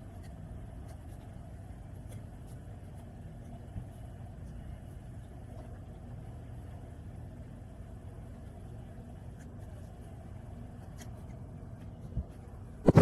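A steady low mechanical hum. A sharp knock comes near the end, and two louder knocks come just before the end.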